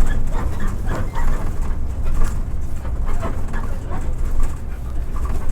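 Passenger tricycle's motorcycle engine running with a steady low rumble, with scattered short knocks and rattles over it.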